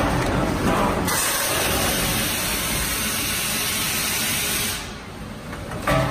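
Steel drum line machinery running, with a steady loud hiss of compressed air from about a second in until near the end, when it drops away. A sudden louder machine sound starts just before the end.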